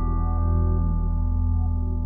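Film score music: sustained ringing, bell-like tones slowly fading over a steady low drone.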